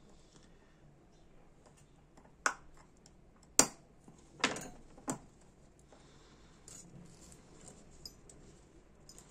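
Small metal clicks and taps from working on a Dupont L1 lighter's mechanism with tweezers and setting tools down on the bench. Four sharp clicks come in the first half, then only faint ticks.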